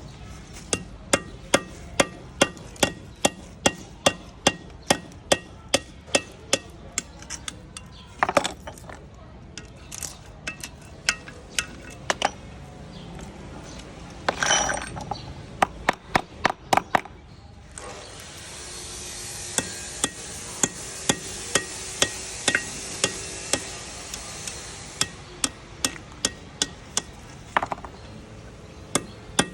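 Repeated hammer blows on metal, about two a second, steady for long stretches with a sparser patch near the middle. A steady hiss runs under the blows for several seconds in the second half.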